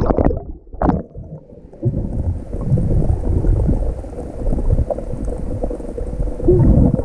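Water gurgling and rumbling around a camera held underwater in the sea, with a crackle of small clicks and a sharp click about a second in.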